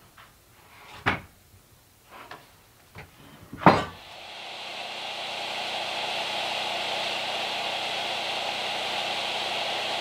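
Sawn wooden boards knocking and clattering as they are handled, with two sharp knocks about a second in and just before four seconds. After that an electric power tool motor comes up and runs steadily.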